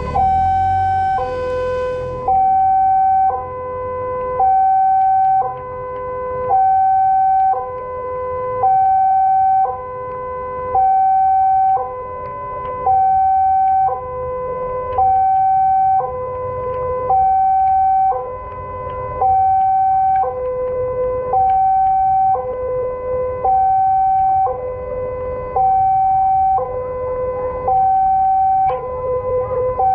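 Indonesian railway level-crossing warning alarm sounding its two-tone signal, a higher tone and a lower tone alternating about once a second, the sign that a train is approaching the crossing.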